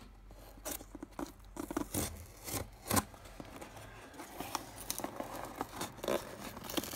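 Packing tape on a cardboard parcel being slit with a folding knife and torn open, with irregular short scrapes and crackles of the cardboard, the sharpest about three seconds in.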